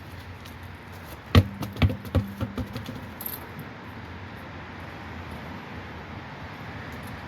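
A quick run of metallic clinks and knocks, about half a dozen in just over a second, starting about a second and a half in with the loudest first: tools and parts being handled during a car's front brake pad change. Steady low background noise follows.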